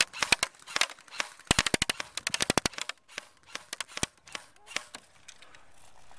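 Airsoft electric rifles firing: scattered single shots and short bursts, with a fast full-auto burst of about a dozen shots starting about a second and a half in. The shooting dies away about five seconds in.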